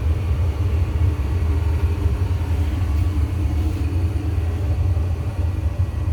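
Gas furnace running: a steady low rumble with a faint hum over it.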